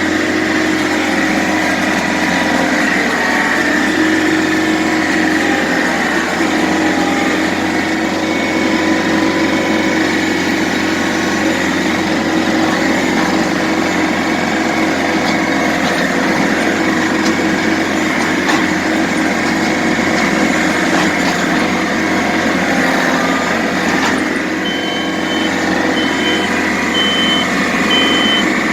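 John Deere 110 TLB tractor loader backhoe's diesel engine running steadily under work. Near the end a reversing alarm starts beeping, about once a second.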